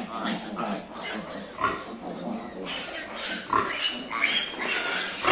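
Domestic pigs grunting and squealing in a steady run of short calls, two or three a second.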